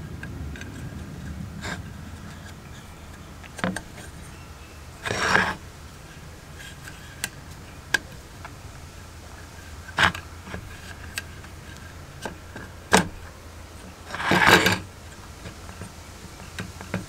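Handling noises as a rubber gasket is worked around the metal mechanism of a GEC telephone extension bell: rubbing, scattered sharp clicks and knocks, and two longer scraping rustles about five and fourteen seconds in.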